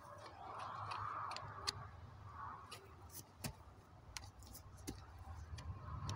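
Hoof pick scraping and clicking against a horse's hoof while packed dirt is picked out of the sole: irregular sharp clicks with a few short scraping strokes.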